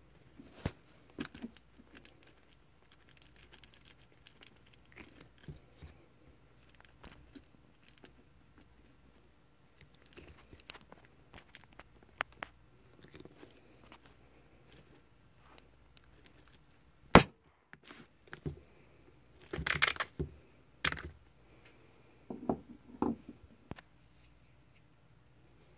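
A metal pick poking and scraping at the rubber soles of old Nike sneakers to pop their air pockets: scattered small clicks and scratches, one sharp crack about two-thirds of the way through, then a run of louder scraping and knocks.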